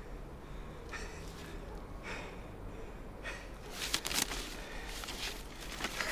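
A man breathing audibly in short breaths or sniffs about once a second. From about four seconds in, sheets of paper rustle and crackle as they are handled.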